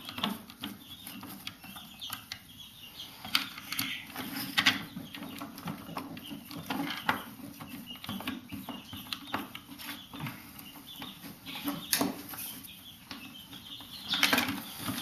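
Irregular clicks and light knocks of a screwdriver and plastic housing parts being handled while screws are taken out of a Dyson vacuum turbine head.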